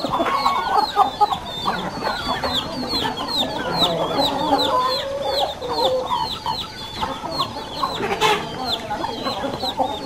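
Chickens clucking with chicks peeping over them, a steady run of short, high, falling peeps several times a second. A single sharp knock about eight seconds in.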